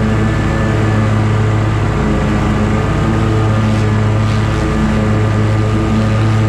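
Scag Tiger Cat zero-turn mower's engine running steadily with its 61-inch cutting deck engaged, mowing grass.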